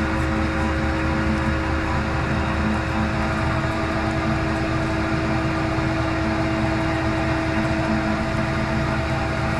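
Dake VH 24 band saw running steadily under power: an even motor and blade hum carrying a couple of constant tones.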